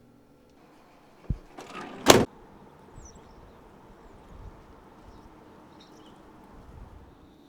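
Van sliding door closing: a click, a short slide along its track, then a loud slam about two seconds in.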